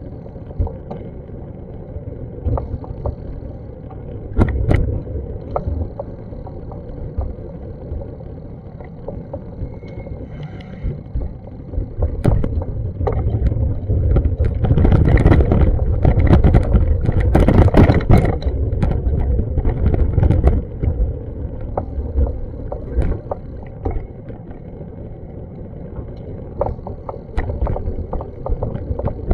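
Outdoor city street ambience: a steady low rumble with scattered short clicks and knocks, swelling louder for several seconds in the middle, as a passing vehicle or a gust would.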